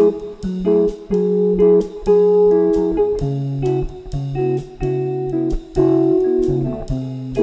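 Background music led by guitar: chords that change every second or so over a regular strummed beat.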